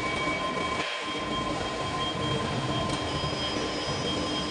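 Steady heavy machine-shop machinery noise, a continuous hum and rumble with several steady high-pitched whining tones over it.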